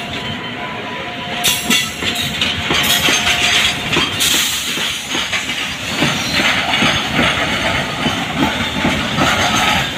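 Freight wagons of a WAG-9-hauled goods train rolling past close by, their steel wheels clattering continuously over rail joints and points.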